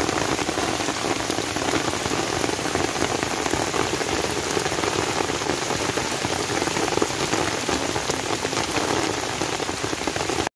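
Steady, even rush of storm water, cutting off abruptly at the end.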